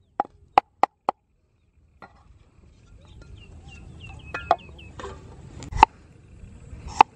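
Kitchen knife chopping garlic on a wooden cutting board: four quick strokes, then a break. Later, two single knife chops on the board, with birds chirping in the background.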